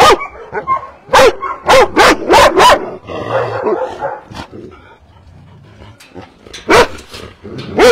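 Kennel dog barking: a quick run of five or six sharp barks in the first three seconds, a short lull, then another bark near the end.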